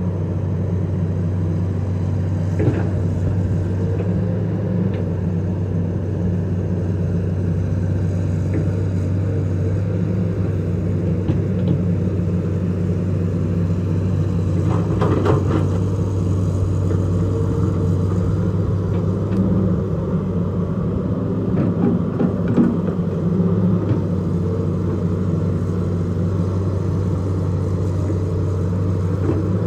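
Hitachi EX200 excavator's diesel engine running steadily as it digs and loads wet soil, with a few short knocks and clanks, the most prominent about fifteen seconds in.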